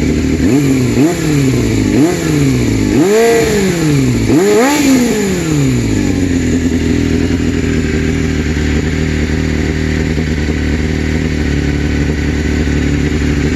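Yamaha FZR400 RR inline-four revved through a Bodis GPX-2 exhaust with its dB killer fitted: about five quick throttle blips, the last two higher and longer, then it settles back to a steady idle.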